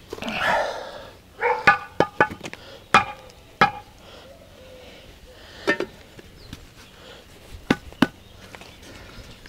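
Steel mason's trowel working mortar on concrete blocks: a scrape just after the start, then a run of sharp, ringing taps, and a few spaced taps later on.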